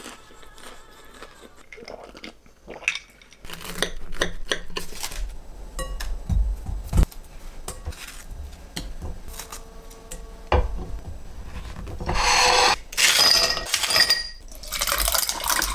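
Kitchen clatter: scattered clicks of a knife and fork against a plate, then ice cubes poured from a plastic ice bin into a glass, two loud clattering rushes near the end.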